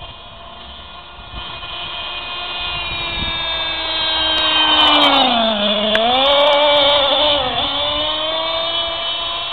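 Small nitro engine of an Ansmann Vapor RC buggy running at speed, growing louder toward the middle and then easing off, with its pitch dipping briefly and recovering about halfway through.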